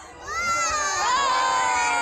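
Crowd cheering and whooping, with several high voices shouting together in one long, loud cheer that starts about a quarter second in.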